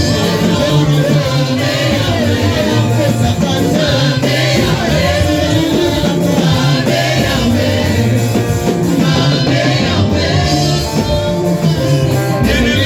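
Gospel music: a choir singing over instrumental accompaniment.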